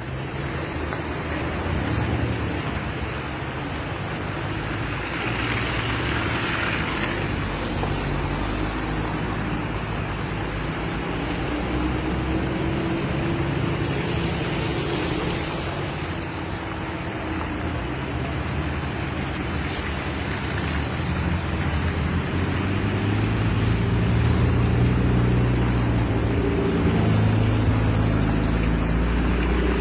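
A vehicle engine running, its pitch shifting now and then, under a steady rush of floodwater noise.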